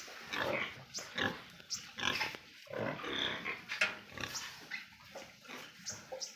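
Pigs grunting and calling in short, irregular bursts, a few each second.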